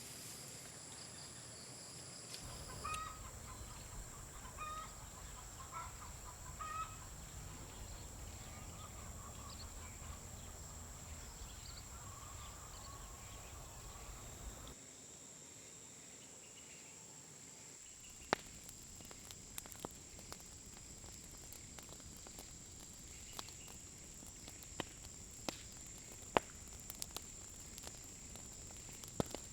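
Chickens clucking in short, repeated calls through the first half, then a sudden change to a quieter stretch with scattered sharp clicks. A steady high-pitched whine runs underneath throughout.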